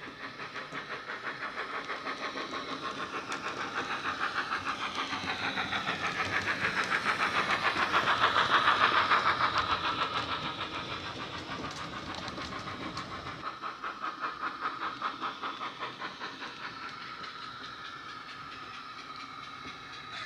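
Sound decoder in a Dapol Mogul model steam locomotive, fitted with a Wheeltappers sound file and two speakers, playing a steady, fast beat of steam exhaust chuffs with hiss as the model runs along the track. It grows louder to a peak about eight seconds in as the train passes close, then fades as it draws away.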